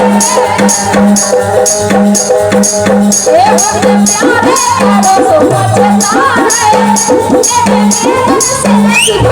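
Folk-pop song music with a steady beat: a pulsing bass note, a high shaker-like tick about three times a second, and a melody line that bends in pitch.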